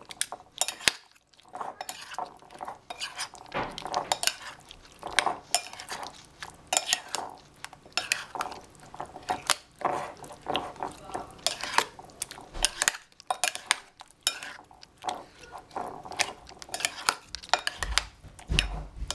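Two metal spoons tossing cucumber slices in yogurt in a ceramic bowl: irregular clinks and scrapes of metal against the bowl, with brief lulls about a second in and around thirteen seconds.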